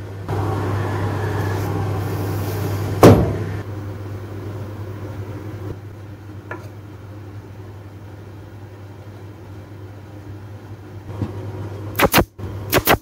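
A steady low hum with a loud sharp knock about three seconds in, then a pneumatic brad nailer firing a few sharp shots in two quick pairs near the end, driving brads through a thin wooden strip into plywood.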